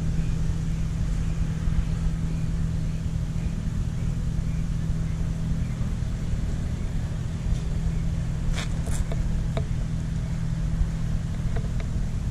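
A motor running steadily: a low rumble with a constant hum. A few short clicks around nine seconds in.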